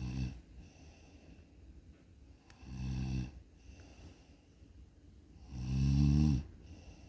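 Snoring: three snores about three seconds apart, each a short pitched rumble, the last one loudest and longest.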